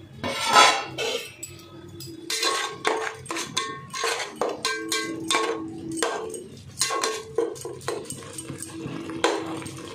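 Metal spoon clinking and scraping against a steel cooking pot, stirring the masala, each strike leaving a short metallic ring, two to three strikes a second. A short loud cry about half a second in.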